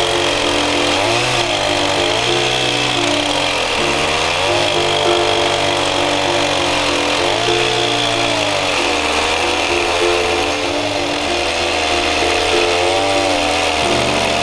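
Stihl MS880 two-stroke chainsaw running at full throttle while ripping a log lengthwise in an Alaskan chainsaw mill, its engine pitch dipping and recovering every few seconds as the chain works through the cut.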